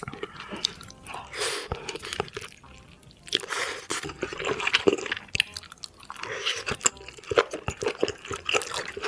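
A person eating close to the microphone: wet chewing and mouth noises in irregular bursts, typical of eating ramen noodles.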